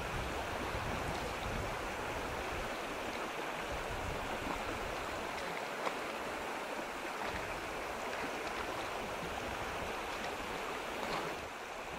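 Small mountain creek flowing, a steady rush of water.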